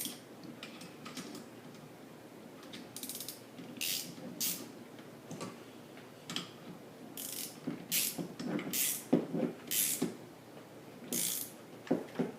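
Irregular metallic clicks and short scrapes of threaded metal pipe fittings being handled and tightened by hand.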